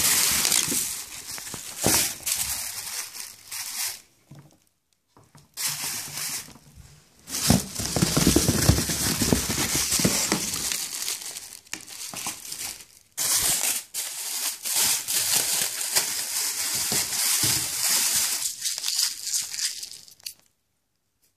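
Clear plastic bags wrapped around firework aerial shells crinkling and rustling loudly as they are handled and pulled open close to the microphone. It comes in bursts with brief pauses and stops near the end.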